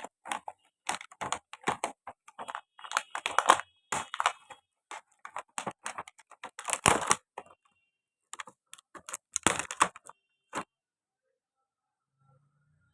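Irregular clicks and crackles of tight plastic packaging on a toy doctor set being worked open by hand, going quiet near the end.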